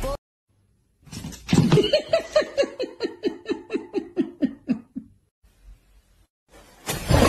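A person laughing: a long run of quick, even 'ha' beats, about four or five a second, falling steadily in pitch before dying away. A loud, noisy sound starts suddenly near the end.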